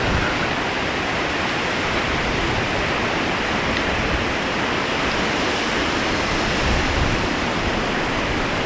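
Eas Mor waterfall, a single drop of just over 100 feet, in spate after torrential overnight rain: a steady, loud rush of falling water that cuts off abruptly at the end.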